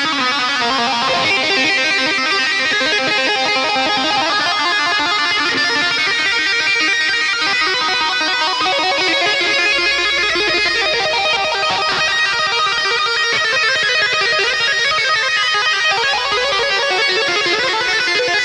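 Background music led by guitar, played at a steady level.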